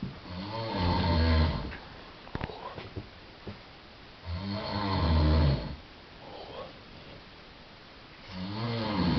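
A person snoring in a steady rhythm: three loud, rasping snores, each about a second and a half long, coming roughly every four seconds.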